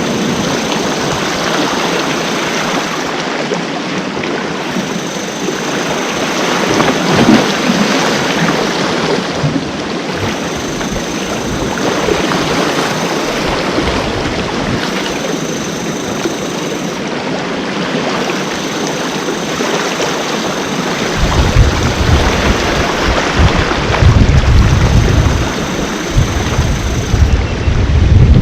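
Sea waves washing and breaking on the shore, a steady rush that swells and ebbs. About three-quarters of the way in, a deep, gusting rumble joins and the sound gets louder.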